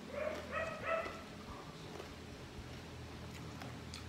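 A dog whimpering: three short, high-pitched whines in quick succession in the first second, then a fainter one.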